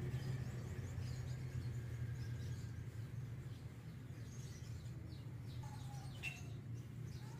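Steady low hum in the background with faint, high bird chirps scattered through it, one clearer chirp about six seconds in.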